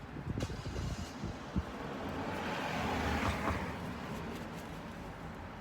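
A car passing by, its tyre and engine noise swelling up over a second or two and fading away again. A few light clicks and knocks of handling parts come before it.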